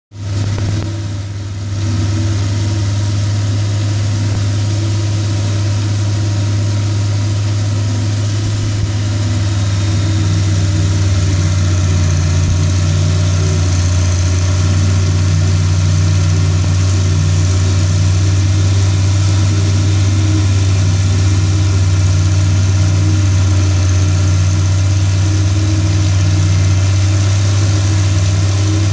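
International Harvester 806 tractor's six-cylinder diesel engine running steadily under load, pulling a forage harvester that is chopping corn and blowing it into a wagon. It grows a little louder about a third of the way through as the tractor draws nearer.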